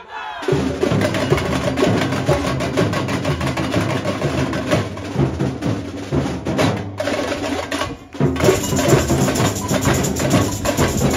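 Samba band playing drums and hand percussion in a dense, fast groove. The playing drops out briefly twice about two-thirds of the way through, then comes back in fuller.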